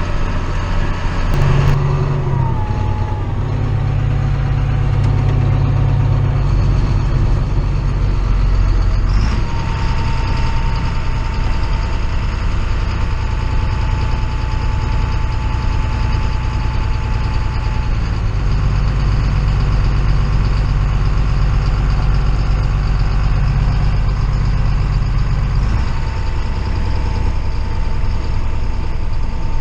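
Ford dump truck's engine running steadily under way, with a high whine whose pitch drops about two seconds in and steps up again about nine seconds in and once more near the end.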